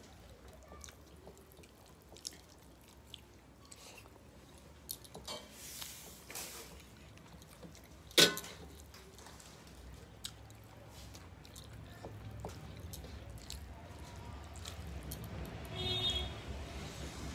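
Close-up eating by hand: fingers mixing and scooping rice on metal plates, chewing and lip smacks, with scattered small clicks and one sharp click about eight seconds in. A low rumble builds up through the second half, and a brief higher tone sounds near the end.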